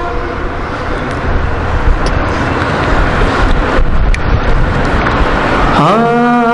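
A congregation reciting salawat together, many voices merging into a loud, even murmur. Near the end, a man's voice slides up into a long held chanted note.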